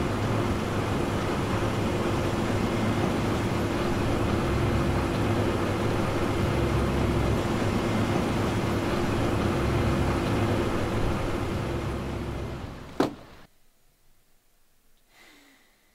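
Steady low engine drone with a constant hum and a pulsing low rumble. It ends in a single sharp knock about thirteen seconds in, after which there is near silence.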